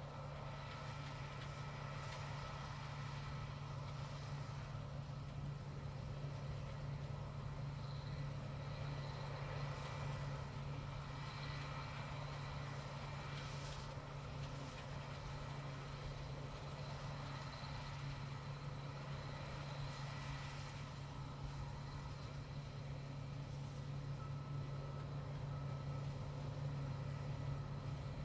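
Multi-rotor drone's motors and propellers humming steadily, a low hum with fainter high whining tones that shift a little in the middle as it manoeuvres.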